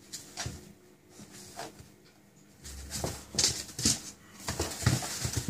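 A 9-week-old Staffordshire bull terrier puppy's paws and claws scrabbling on an absorbent puppy pad as it spins after its tail, making short scratchy rustles and light knocks. They come sparsely at first and grow busier about three seconds in.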